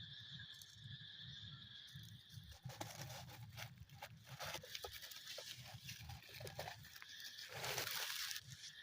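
A steady high drone that stops about two and a half seconds in, followed by irregular rustling and crackling, with a louder rustle near the end.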